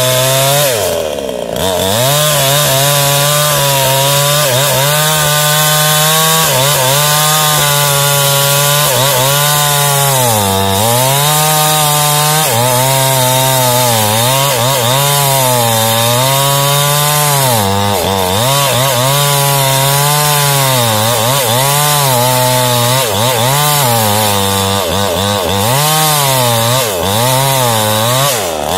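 Small two-stroke chainsaw (New Paxton) cutting into a standing jengkol tree's trunk at full throttle. The engine's pitch sags again and again as the chain bogs in the wood, then picks back up. It eases off briefly about a second in and drops away right at the end as the throttle is released.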